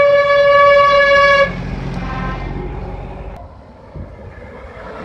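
A truck horn sounds one steady blast that cuts off sharply about a second and a half in. Then the low running of truck engines carries on as they drive past.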